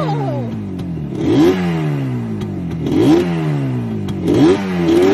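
Yamaha motorcycle engine revved in short throttle blips, about four times, each rising quickly and then falling back toward idle.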